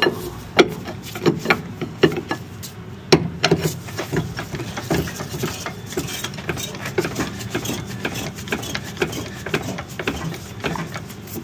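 Hydraulic cab tilt pump on a DAF CF truck being worked to tip the cab forward. It makes a run of irregular clicks and knocks, a few a second, from the pump and its handle.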